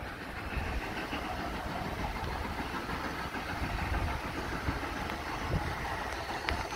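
Wind buffeting the microphone over a steady hiss of light rain.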